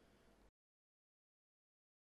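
Near silence: faint room tone that cuts off to complete silence about half a second in.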